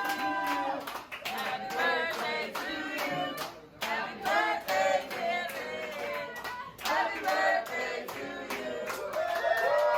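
A group of voices singing together, with hand claps keeping time.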